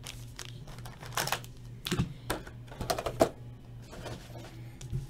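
Irregular sharp clicks and short crackles of hands handling objects at a table, over a steady low electrical hum.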